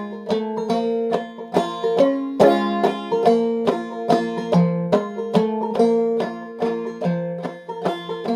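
Clawhammer banjo in a low sawmill tuning, capoed at the third fret, playing an instrumental break of a 3/4 tune in F#: a steady run of brushed and plucked notes with a drone string ringing under the melody.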